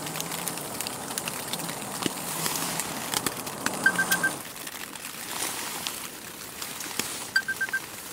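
Backpacking canister stove burning with a steady hiss and low hum under a pot, which drops away sharply about four seconds in as the flame is turned down. Two runs of four quick high electronic beeps, one just before the drop and one near the end, with light clicks throughout.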